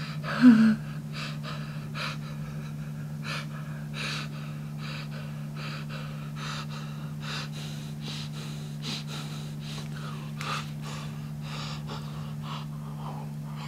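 A man breathing in short, quick gasps, about two to three a second, with one louder voiced gasp near the start, over a steady low hum.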